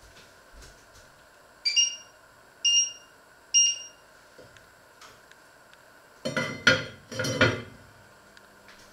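Three short electronic beeps about a second apart, typical of a stove's touch controls being set, then an enamelled pot lid clanking down onto a cast-iron grill pan, several metallic knocks over about a second and a half. A faint steady hum starts near the end.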